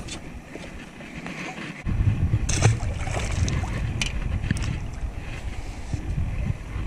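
Wind buffeting the microphone as a low rumble that comes in suddenly about two seconds in, with a few sharp knocks from gear being handled in an aluminium jon boat.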